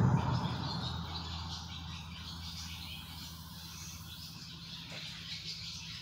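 Highway traffic on the overpass overhead: a loud rumble dying away over the first second, then a low steady drone with faint high chirping.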